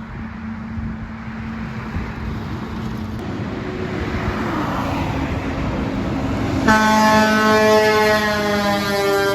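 A truck approaching with its engine and road noise building, then a long air-horn blast of about two and a half seconds as it passes, the pitch sagging slightly near the end.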